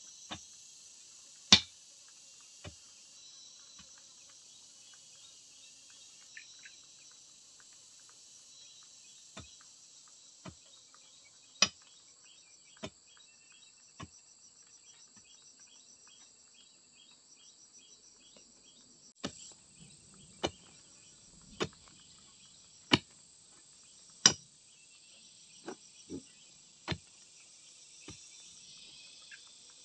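Long iron digging bar jabbed down into the soil of a hole, giving sharp, separate strikes that come in runs about a second apart, over a steady high chorus of insects.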